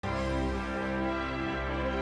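Orchestral theme music starting abruptly, with sustained held notes.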